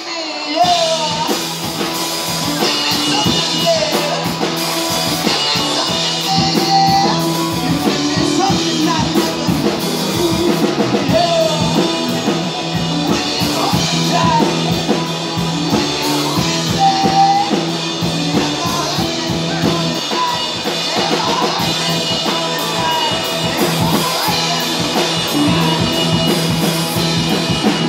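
Live rock band playing a song: electric guitar, bass, drum kit and keyboard, with a sung lead vocal.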